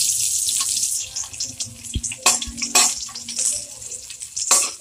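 Sliced garlic sizzling in hot oil in a wok: loudest at first, settling lower after about a second. From about halfway, a metal ladle stirs it, with a few short scraping strokes against the pan.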